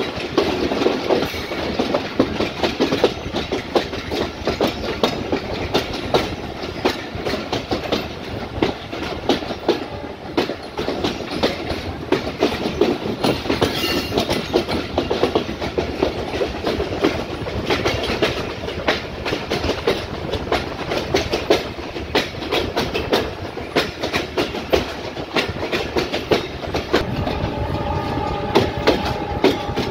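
Wheels of the moving Titumir Express, a Bangladesh Railway intercity passenger train, heard from an open door of one of its coaches: a steady rolling rumble with dense clickety-clack over the rail joints. A faint steady tone joins in near the end.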